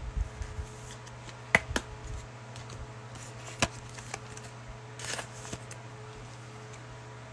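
Trading cards being handled and flipped through: a few sharp clicks and snaps, and a short rustle about five seconds in, over a faint steady hum.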